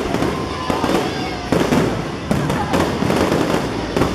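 Aerial fireworks display: a dense, irregular run of bangs and crackling, one burst after another.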